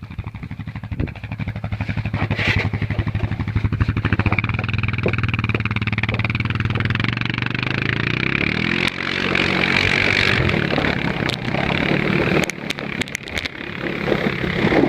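An engine running steadily, its pitch shifting about eight to nine seconds in.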